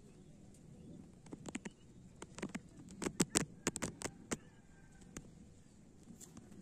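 A quick run of about a dozen sharp clicks and taps in the middle, with a couple more spaced out near the end, over a faint background hiss.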